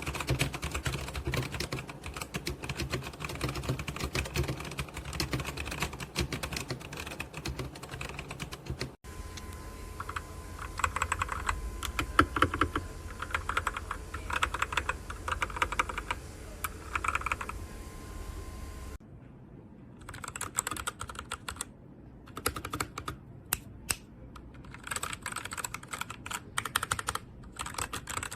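Typing on a Machenike K500 mechanical keyboard: a fast, dense run of key clicks and clacks. It comes in three takes that cut off abruptly about 9 and 19 seconds in. The middle take has a faint steady hum under the keystrokes.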